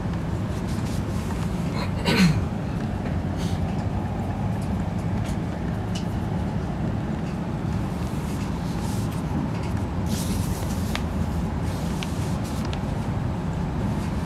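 Steady low rumble of an ICE high-speed train carriage while running, with a brief loud swish about two seconds in. A newspaper being handled adds light rustling and small clicks.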